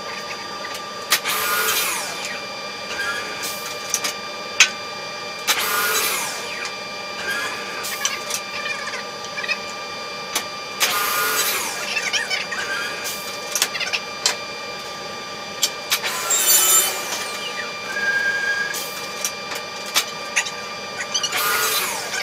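A woodworking machine running with a steady whine. It works through a piece of wood in short passes of about a second, roughly every five seconds, with sharp clicks in between.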